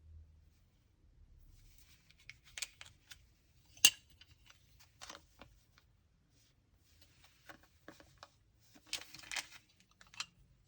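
Unboxing handling noises: rustling and scraping of packaging and parts, with scattered light clicks and one sharp click about four seconds in.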